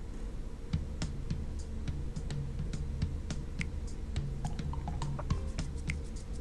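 Scattered small clicks and taps from hands handling loose cable ends and test leads in an electrical cabinet. A steady low drone runs underneath.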